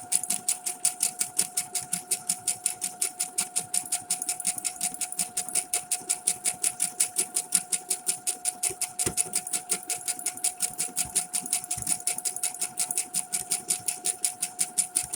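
Brother SQ9185 computerized sewing machine stitching out a monogram lettering pattern: a fast, even run of needle strokes, about eight a second, over a steady motor whine.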